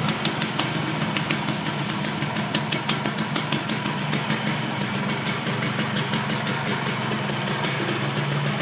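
1997 Suzuki X4 125 single-cylinder four-stroke engine idling on its stock exhaust: a steady low hum with an even, rapid ticking, about six or seven ticks a second.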